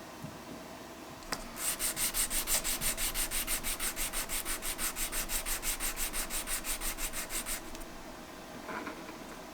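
Tarnished metal speaker badge rubbed quickly back and forth on 400-grit wet-and-dry sandpaper, a fast, even run of scratchy strokes, about six or seven a second, to polish it to a mirror finish. A single click comes just before the sanding starts, and the strokes stop well before the end.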